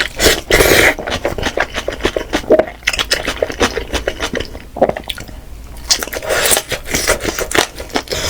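A person chewing and biting steamed chicken close to the microphone: an irregular run of short mouth clicks and smacks.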